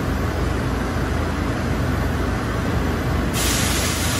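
Steady low hum of a Fastems automated pallet-handling system and its CNC machining cell running. About three seconds in comes a hiss of compressed air that lasts about a second.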